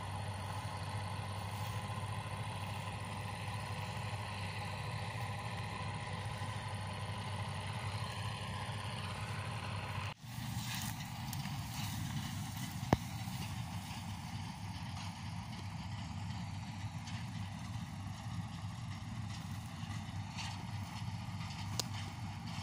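Bizon Z056 combine harvester's diesel engine running steadily in the distance while harvesting, a constant low hum. About halfway through the sound briefly drops out and comes back duller, and a single sharp click stands out a few seconds later.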